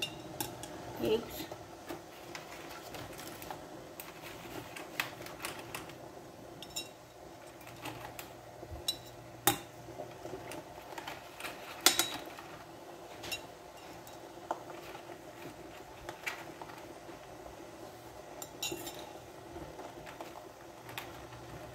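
Metal skimmer and quail eggs clinking and tapping against a stainless steel pot as the eggs are lowered into the water: irregular sharp clinks, a few louder knocks, over a steady hum.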